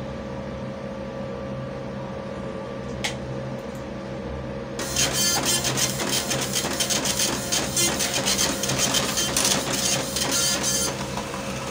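Epson LX-350 9-pin dot-matrix printer printing: a rapid, dense rasp of print-head strikes starts about five seconds in, runs for about six seconds and stops. Before it there is a steady hum and a single click about three seconds in.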